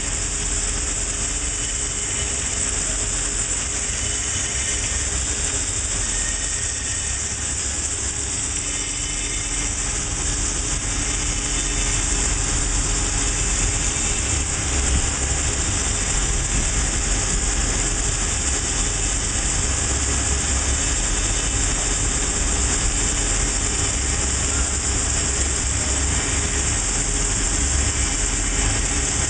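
Butler Newall CNC strut grinder running, its grinding wheel working along a turning metal shaft: a steady hiss over a low machine hum, a little louder from about twelve seconds in.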